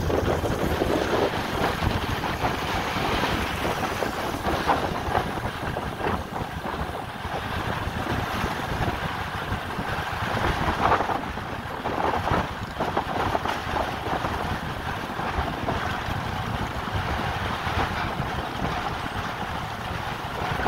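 Steady rushing noise of a moving vehicle, with wind buffeting the microphone and irregular swells in level.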